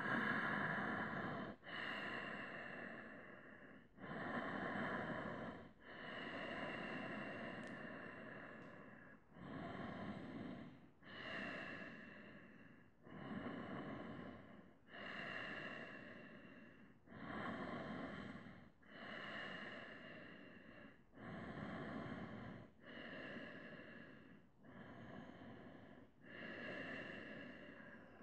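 A person breathing deeply and audibly while holding a seated yoga pose: a long, even run of about fourteen slow in-and-out breaths, each lasting a second or two.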